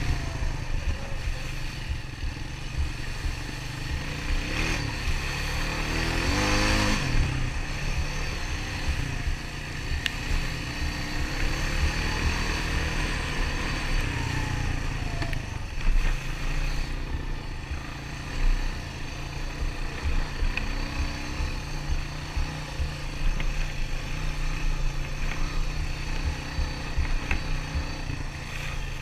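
Honda ATV engine running as the quad rides along a trail, the revs rising briefly a few seconds in, with small knocks and rattles over the ground.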